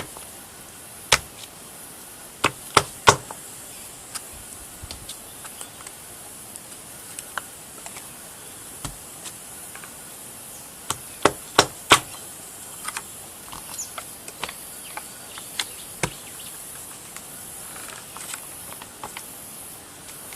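Rubber stamp dabbed on an ink pad and pressed down onto paper: scattered sharp taps and clicks, several in quick succession around three seconds in and again around eleven to twelve seconds in.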